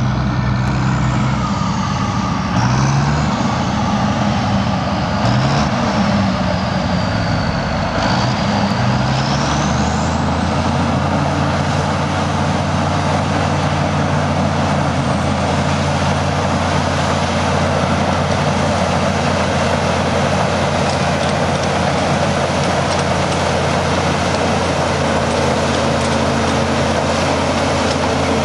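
Heavy diesel engine of an elevating scraper working. Its pitch rises and falls for about the first ten seconds, then it runs at a steady speed.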